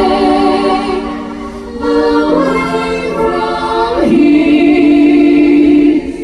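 A group of stage-show singers holds long notes in harmony over backing music. A new chord comes in about two seconds in, and a stronger held note rises about four seconds in.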